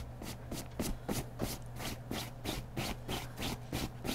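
Baby sucking and gumming a soft teething biscuit, a rhythmic run of short wet smacks about three times a second.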